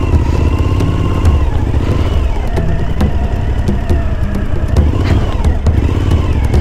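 Adventure motorcycle's engine running at low revs while it is ridden off-road over a rough dirt track. The engine note rises and falls a little as the throttle is worked.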